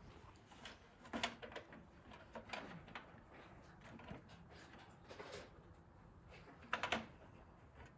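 Sheets of plain paper rustling and tapping against plastic as they are loaded into the rear paper tray of a Canon PIXMA TS3160 printer, with a few scattered light clicks and the loudest rustle near the end.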